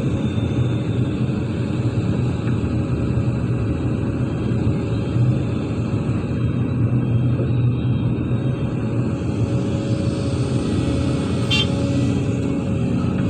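Heavy diesel engines of an excavator and a dump truck running steadily as the truck reverses under the bucket. Near the end there is a short clatter as soil starts to drop from the bucket into the steel truck bed.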